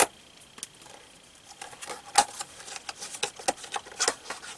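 Noctua thermal paste packaging being handled and opened by hand: a quick, irregular run of light clicks, taps and rustles that starts about a second and a half in.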